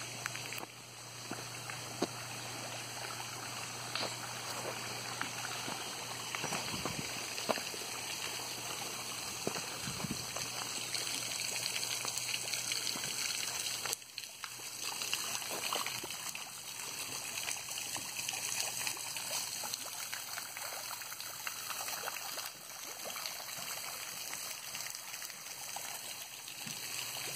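Running water trickling steadily, with a few scattered clicks.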